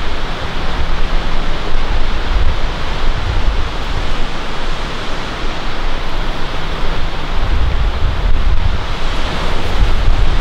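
Loud, steady rushing noise with an uneven low rumble underneath.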